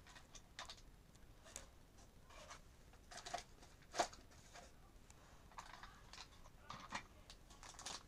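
Faint, scattered clicks and rustles of plastic toy pieces and packaging being handled, with one sharper click about four seconds in.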